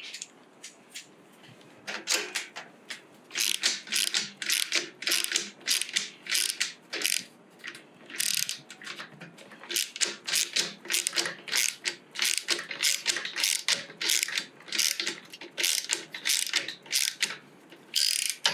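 Hand ratchet from a socket set being worked back and forth: quick runs of sharp metal clicks from the pawl, in irregular bursts with brief pauses.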